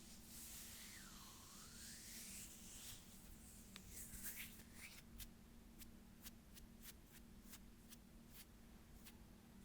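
Close-miked ASMR hand sounds: a soft swishing rub for the first few seconds, then a run of light, sharp clicks, about two a second.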